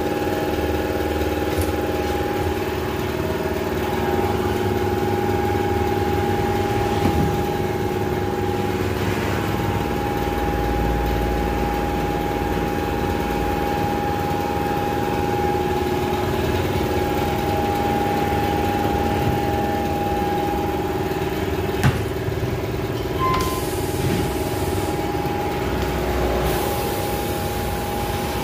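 Electric piston air compressor running with a steady hum, with a few knocks and a sharp click as a tyre is worked onto its rim on a tyre-changer machine.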